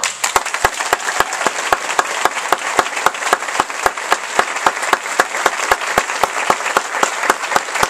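Theatre audience applauding, with sharp nearby claps standing out at about four a second over the dense clapping of the crowd.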